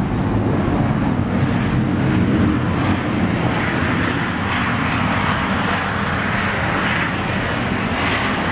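Boeing 737-700 airliner's CFM56-7 jet engines running loud on its landing roll down a wet runway. The noise grows brighter and more hissing from about three seconds in.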